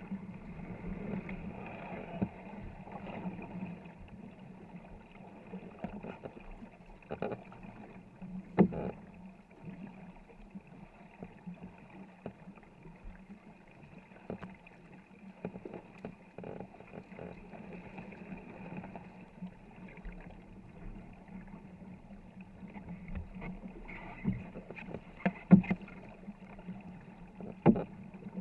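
Crew paddling a wooden war canoe: steady splashing and churning of paddle blades in the water, muffled. A few sharp knocks stand out, the loudest near the end.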